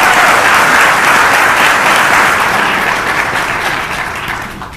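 Audience applauding, the clapping tapering off over the last couple of seconds and dying away at the end.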